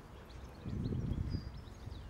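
Outdoor street ambience: a low, uneven rumble that swells about halfway through, with short high chirps scattered over it.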